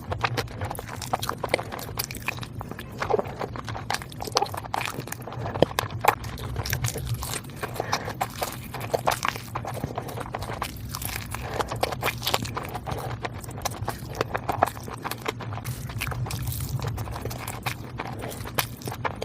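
Close-miked eating: chewing with wet mouth smacks and lip clicks, many quick irregular clicks, over a low steady hum.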